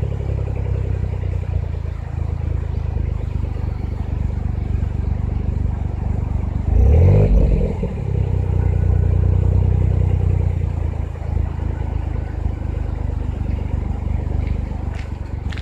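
Suzuki Jimny JB23's 660 cc turbocharged three-cylinder engine idling through a Suzy Sport Dynamic Sport Muffler Type 2 aftermarket exhaust, with one short blip of the throttle about seven seconds in.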